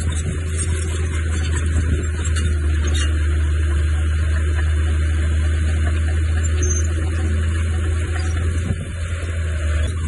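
Heavy earthmoving machinery's diesel engine running steadily, a deep drone with a noisy rumble above it.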